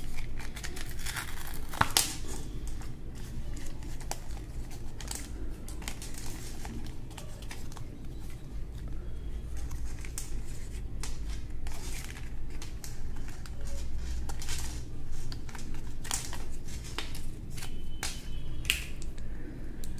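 Cardboard insert card from an earphone box being handled: irregular rustling, scraping and crinkling with short clicks as the wired earphones and their cable are worked free of it.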